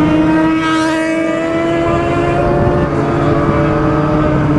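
Vehicle engine running steadily at highway cruising speed, an even hum whose pitch drifts slightly up and back down, with a brief whoosh of noise about a second in.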